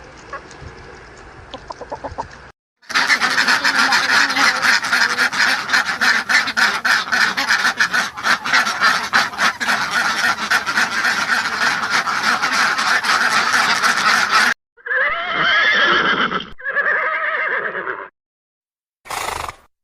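Farm poultry calling, in separate clips. Quiet clucking for the first couple of seconds, then a loud, dense flock chorus for about twelve seconds, then two longer single calls and a short call near the end.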